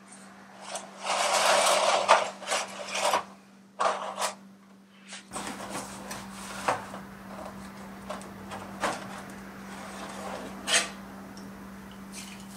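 Disposable aluminium foil roasting pan crinkling and scraping as a whole roast turkey is handled and lifted out of it onto a wooden cutting board. The loudest crinkling comes about a second in, followed by scattered knocks and clicks. A steady low hum runs underneath.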